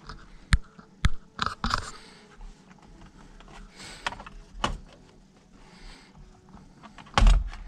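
Scattered plastic clicks and knocks as the driver airbag module is worked loose from the steering wheel, with one louder thump about seven seconds in.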